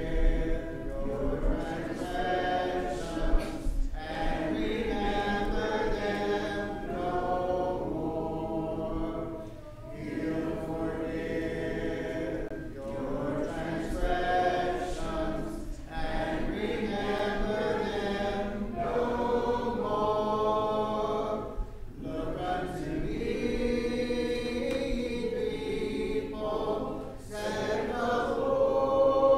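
A congregation singing a hymn a cappella, with no instruments. The voices go in long phrases with a short break for breath about every six seconds.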